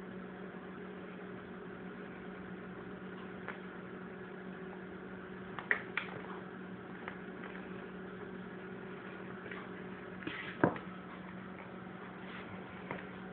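A house cat's paws and claws knocking and tapping against wooden kitchen cabinet doors as it plays on its back. There are a few sharp knocks, two close together about halfway through and the loudest one near the end. A steady low appliance hum runs underneath.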